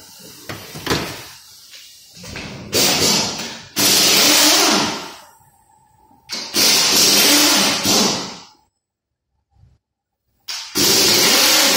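Pneumatic wrench running in three bursts of about two seconds each, undoing bolts on a Toyota Land Cruiser V8 engine being stripped down, with a few knocks of metal handling in the first two seconds.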